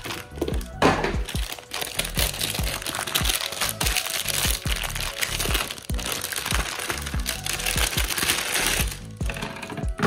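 Anti-static plastic bag crinkling and crackling as a motherboard is pulled out of it, from about a second in until near the end. Background music with a steady beat runs underneath.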